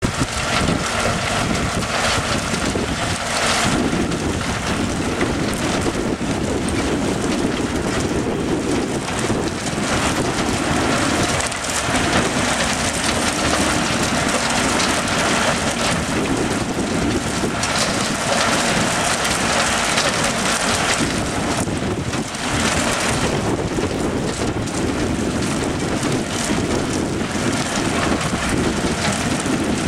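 Mobile sand washing and screening plant running: a steady, dense rushing of water and sand pouring through the screen and bucket-wheel washer.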